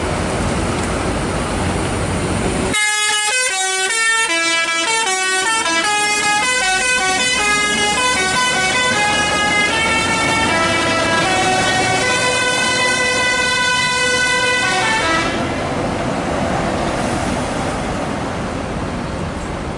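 Bus 'telolet' multi-tone horn playing a melody: several horn notes sound together and step from pitch to pitch for about twelve seconds, starting about three seconds in. Before and after it there is a steady rush of engine and traffic noise.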